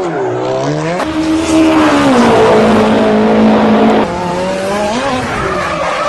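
An engine revving up and down in pitch, like a racing car, with sudden jumps in sound about a second in and again about four seconds in.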